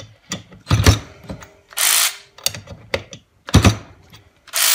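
Harbor Freight Earthquake XT 12-volt cordless ratchet run in repeated short bursts against a nut tightened to 60 foot-pounds. Each burst is a brief whir from the motor and gears and a hard clunk as the head stalls. It cannot break the nut loose.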